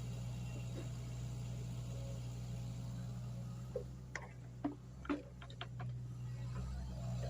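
Mini excavator's engine running steadily with a low hum. A quick run of sharp knocks and clicks, about six in two seconds, comes past the middle.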